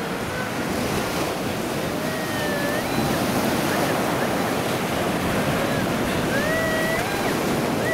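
Surf breaking and washing up the beach, with wind on the microphone. Twice, a faint rising beep that levels off, the Whites TDI pulse-induction metal detector's target tone as its coil sweeps over buried metal.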